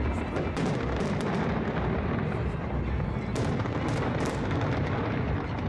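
Fireworks exploding in rapid succession: a continuous low rumble of booms with sharper cracks and bangs, which cluster about half a second in and again from about three and a half seconds.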